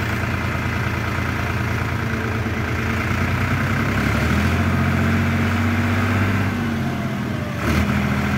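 Farmtrac 6037 tractor's diesel engine running under load as it tries to haul a soil-laden trolley with its rear wheel sunk in loose soil. The engine grows louder and heavier from about halfway. There is a brief knock near the end.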